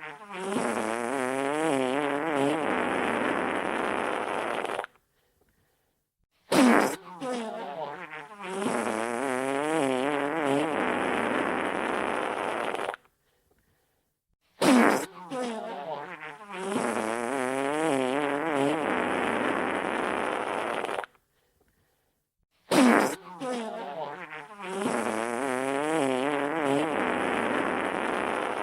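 Wet fart sound effect played on a loop: each fart starts sharply, then runs for about five seconds with a wavering pitch, and stops dead. It repeats about every eight seconds, with a short silence between repeats.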